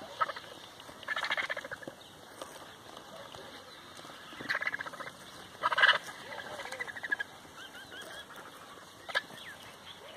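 Vultures squabbling at a carcass, giving harsh rattling cackles in three bursts: about a second in, then two more around four and a half and six seconds.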